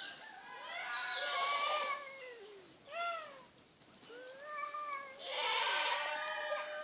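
Two cats yowling at each other in a territorial standoff, the threat display that comes before a cat fight. Long, wavering wails rise and fall in pitch and come in three bouts, the last one the longest.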